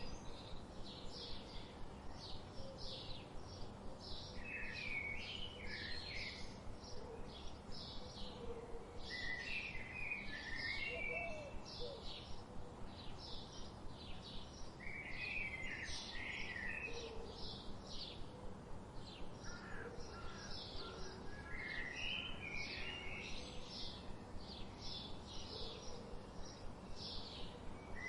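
Several songbirds singing: quick high chirps repeat throughout, and a lower warbled phrase comes about every five to six seconds, over a steady background hiss.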